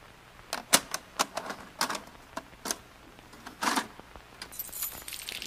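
A run of about ten sharp, irregularly spaced clicks and taps, with a brief high hiss near the end.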